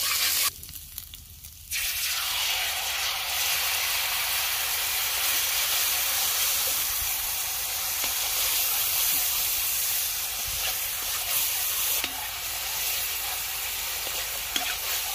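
Marinated chicken lollipops deep-frying in hot oil: a steady sizzle. It cuts out suddenly about half a second in and comes back about a second later.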